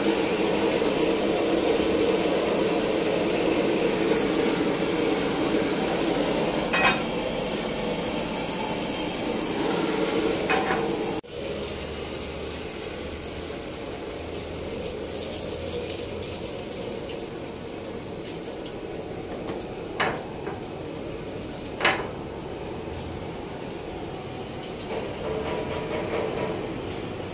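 A steady rush from a gas burner's flame under a frying pan, with sharp metallic clinks of the pan. About eleven seconds in it drops suddenly to a quieter hiss of food frying in the pan, broken by two more clinks.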